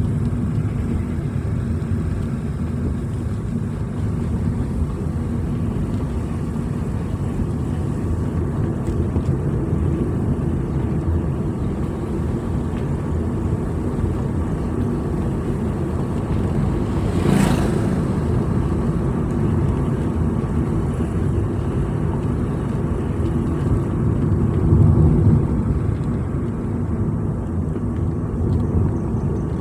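Steady low rumble of a vehicle driving along a road, engine and tyre noise heard from on board. A brief whoosh a little past halfway.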